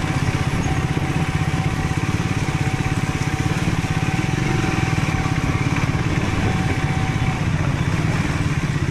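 Motorcycle engine running steadily at low speed on a rough trail, its exhaust a fast even pulsing. A faint thin steady whine runs over it and stops about seven seconds in.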